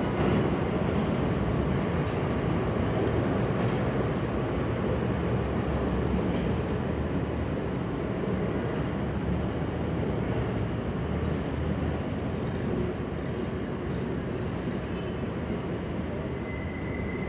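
New York City subway train running on elevated track: a steady rail rumble with a thin high whine, slowly fading.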